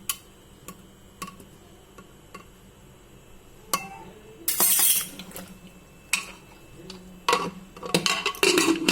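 Spoon clinking and scraping against the inside of a pressure cooker as boiled chickpeas are stirred to check whether they are done. Scattered light clinks, a longer scrape about halfway through, and a quick run of clinks and scraping near the end.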